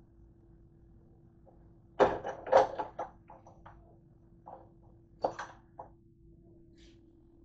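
A few short knocks and clatters of kitchen things being handled: a quick cluster about two seconds in, then single ones near the five-second mark, over a faint steady hum.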